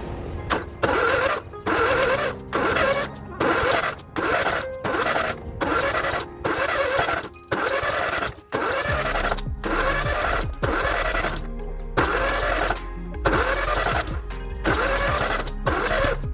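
Music with a choppy, stop-start rhythm, about one burst a second.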